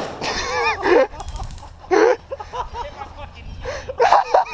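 Players whooping and laughing in wordless, wavering cries, with a quick run of sharp clicks about a second and a half in.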